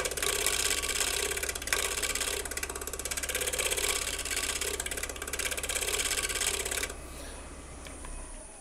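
Wood lathe spinning a natural-edge bowl while a scraper takes light cuts on it: a rapid, even rasping rhythm over the lathe motor's low hum. About seven seconds in the cutting stops, and near the end the lathe is switched off, its motor whine falling as it spins down.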